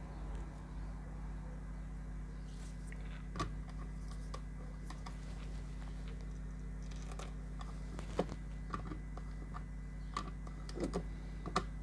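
A few faint clicks and taps of wires and a connector being handled as a ground wire is fitted, over a steady low hum.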